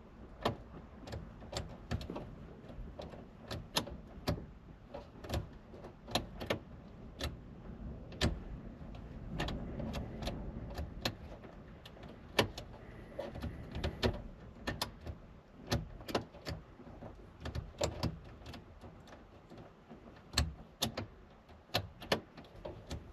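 Irregular light clicks and knocks with some rubbing, from hands working at the steering wheel, key and fittings in the cab of a Toyota Space Cruiser van.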